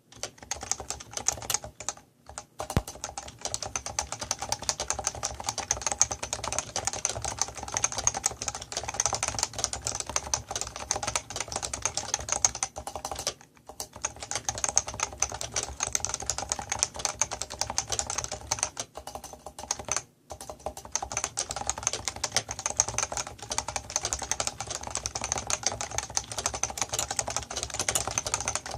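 Leopold FC660C compact keyboard with Topre electrostatic capacitive switches, typed on quickly in a continuous stream of key presses, with a few brief pauses.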